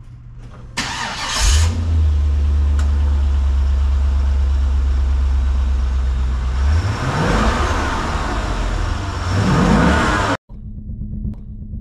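Chevrolet Corvette C5's 5.7-litre LS1 V8 running. It comes in suddenly about a second in, holds a steady low drone for about five seconds, then climbs in pitch as it revs and accelerates, twice. The sound cuts off abruptly near the end.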